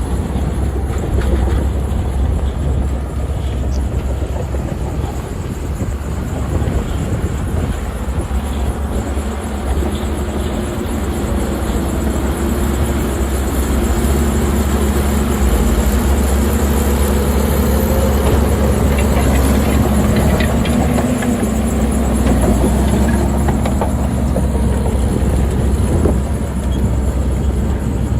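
Heavy diesel earth-moving machinery running steadily with a deep rumble; about halfway through, the engine note rises and strengthens, as under load.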